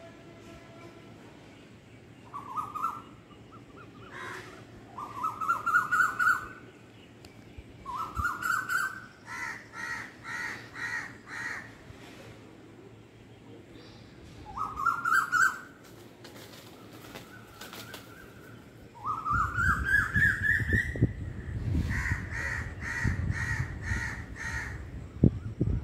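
A bird calling before dawn, giving a rising call phrase again and again, several of them followed by a run of about five evenly spaced repeated notes. During the last few seconds a low rumble runs underneath, with a single sharp knock near the end.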